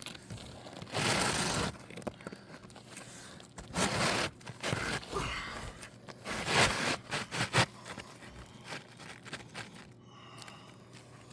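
A new three-tab asphalt shingle being slid into place under the course above, its gritty surface scraping against the surrounding shingles in a few short rough bursts.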